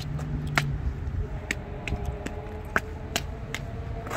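Steady outdoor background rumble with a faint steady hum, and a scattering of short, light clicks.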